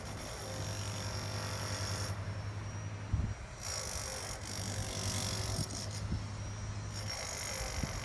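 A steady low machine hum of engine-driven construction equipment under outdoor noise, with a sharp low thump about three seconds in and a couple of lighter knocks later.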